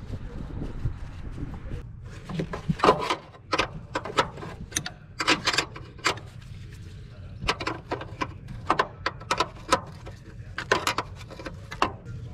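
Metal clinks and clicks of a wrench working loose the fittings on a fuel pressure regulator under a car's hood, in irregular bursts.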